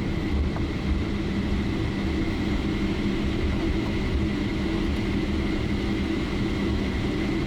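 Steady cabin noise of a Boeing 777-300ER in flight: an even drone of engines and airflow with a constant low hum and a faint high whine.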